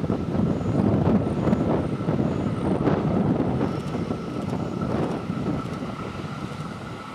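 A JR 211-series electric train running past on the rails, its wheels rumbling and clattering, loud at first and fading steadily as it draws away. A steady high tone sounds over it.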